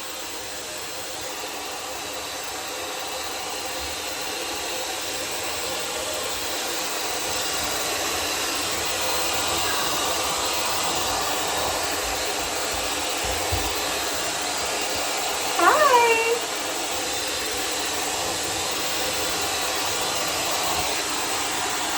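L'ange high-speed hair dryer running steadily with a strong, even rush of air that grows a little louder over the first several seconds. A short squeal falls in pitch about two-thirds of the way through.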